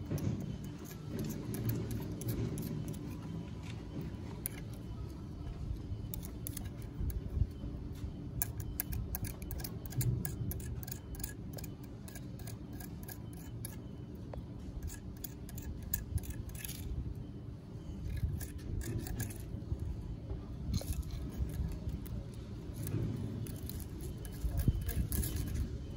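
Light clicks and scrapes of a thin twig ticking and dragging on a concrete step while a kitten bats at it, many small sharp ticks in quick irregular runs. A steady low rumble lies underneath.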